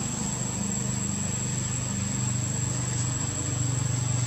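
Steady low hum of a distant engine running, its pitch shifting slightly, under a constant thin high-pitched whine.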